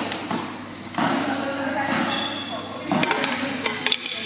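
Tennis balls being struck by rackets and bouncing on a hard indoor court, echoing in a large hall. There are several sharp hits close together about three seconds in.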